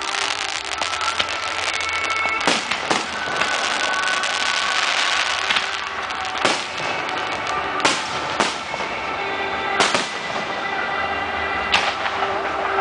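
Aerial firework shells bursting: about seven loud, sharp bangs at irregular intervals over a continuous crackle of cascading stars.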